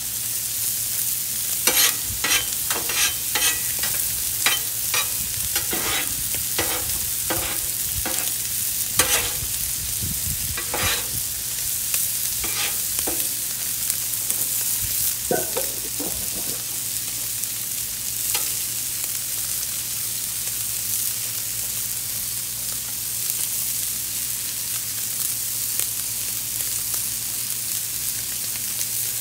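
Steak and sliced peppers and onions sizzling steadily on a Blackstone flat-top griddle. A steel spatula scrapes and clacks against the griddle plate as the vegetables are tossed. The clacks come often in the first dozen seconds, then only now and then.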